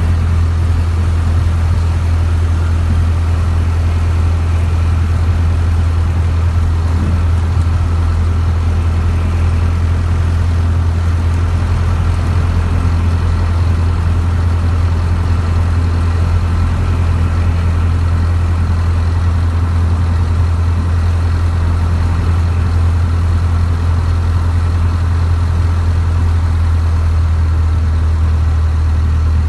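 Cessna single-engine piston engine and propeller running at steady taxi power, heard from inside the cockpit as a constant low drone.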